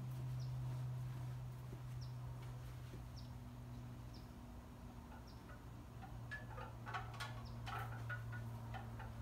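A bird's short high chirp repeating about once a second over a steady low hum, with a brief run of light metallic clinks about two-thirds of the way in.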